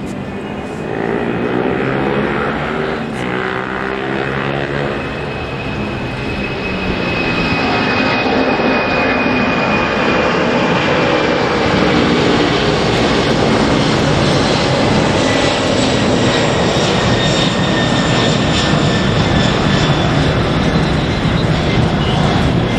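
Boeing 747-400's four turbofan engines at takeoff thrust as the jet takes off and climbs out: a loud, steady jet rush with a thin high whine, growing louder over the first several seconds and then holding.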